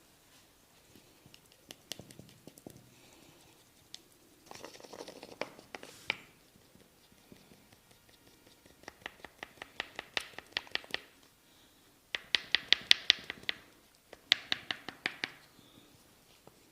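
Percussive massage strokes: quick sharp taps on the body at about ten a second, in three runs in the second half. Before them comes a short stretch of rubbing and scratching, hands working over skin or hair.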